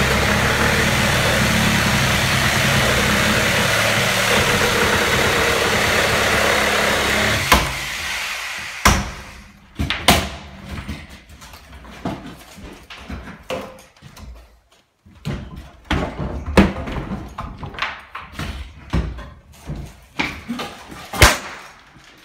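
A steady machine drone, like a running engine, stops abruptly about seven and a half seconds in. Irregular hammer blows on temporary wooden support posts follow, one loud knock after another.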